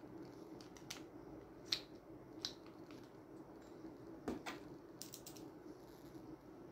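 Faint, scattered clicks and light taps of a spinning reel's plug-in handle being fitted into the body and its cap screwed on, a few sharp ticks among soft handling noise.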